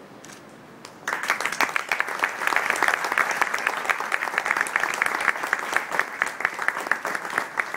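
Audience applauding, starting suddenly about a second in and easing off slightly near the end.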